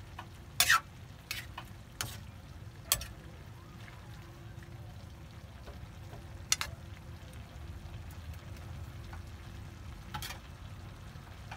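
Metal ladle stirring stir-fried winged beans and pork in a wok. There is a run of sharp clinks and scrapes against the pan in the first three seconds, then one about six and a half seconds in and another near the end.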